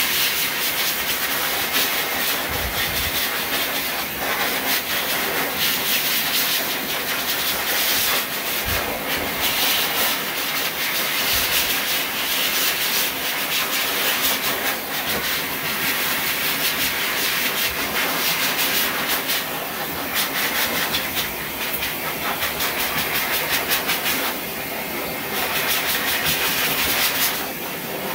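Dog grooming blow dryer blowing a steady rush of air, rising and falling a little in loudness, with a faint motor hum beneath.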